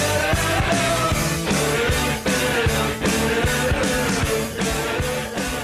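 Hockey goal song: rock music with electric guitar over a steady drum beat, beginning to fade out near the end.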